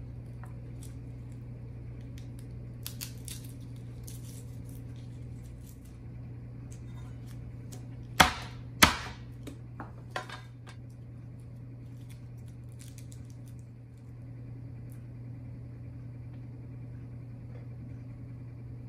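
Garlic cloves being peeled by hand, with light papery crackles and clicks, then a cleaver brought down hard on a plastic cutting board twice in quick succession about eight seconds in, followed by a lighter knock about a second later.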